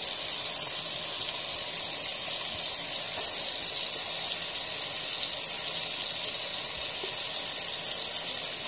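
Kitchen faucet running steadily into the sink, a constant hiss of water.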